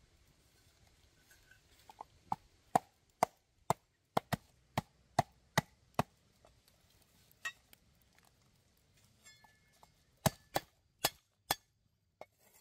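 Knife chopping on a wooden board: sharp single strokes about two a second, a short run of them, a pause, then a few more near the end.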